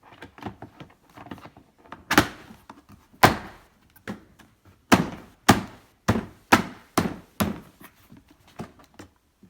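Hard knocks on a plastic toy-car body as the left side window panel of a kids' ride-on car is pushed and tapped into place. There are two loud knocks, then a quicker run of about six, roughly two a second, with lighter taps between.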